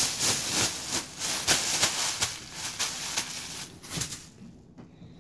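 A plush emoji pillow rubbing and brushing against the phone's microphone. It makes a dense, scratchy rustle of many quick strokes that dies away near the end.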